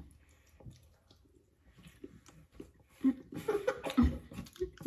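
Chewing and small mouth clicks of people eating hard-boiled eggs, with a brief murmur of voice near the end.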